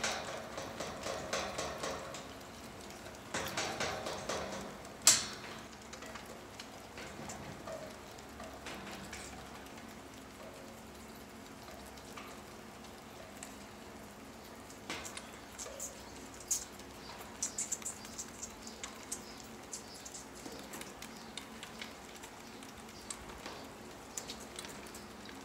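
Two Shetland lambs sucking at rubber bottle nipples: an irregular patter of small wet smacks and clicks, with one sharper click about five seconds in.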